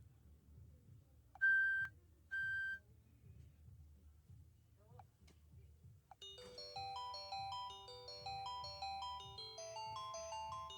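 PalmOne Treo 600 smartphone playing two short, high, steady beeps, then from about six seconds in a ringtone melody of quick, chime-like notes.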